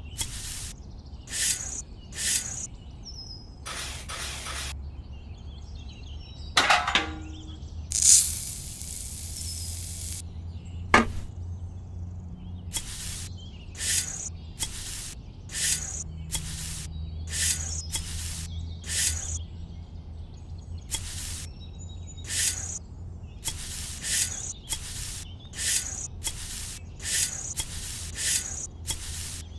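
Miniature metal shovel scraping into dry sand and tipping it into a small tin bucket, a short scratchy hiss about once a second. A longer hiss of sand pouring comes about 8 seconds in, and two sharp metallic clicks come near 7 and 11 seconds, with a low steady hum underneath.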